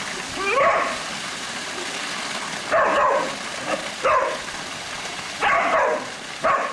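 Border collie barking in short bursts, five or six barks a second or two apart, over the steady rush of a pool water feature's falling water.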